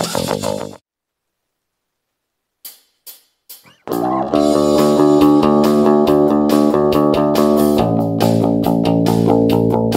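JCraft Classic R2 active electric bass, recorded direct into a sound card, played fingerstyle. The notes stop abruptly just under a second in, followed by a silent pause with a few faint plucks. From about four seconds a sustained ringing chord sounds, changing to another chord near eight seconds.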